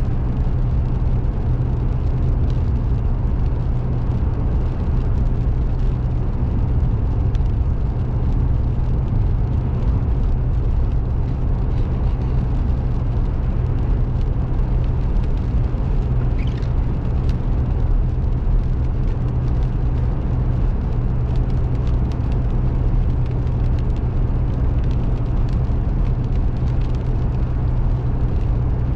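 Steady road and engine noise inside a car cruising on a highway, a low, even drone of tyres and motor with a few faint ticks.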